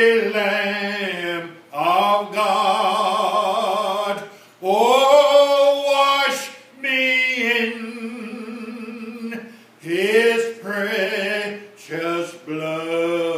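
A man singing solo without accompaniment, in long held phrases that slide up into each note, broken by short breaths.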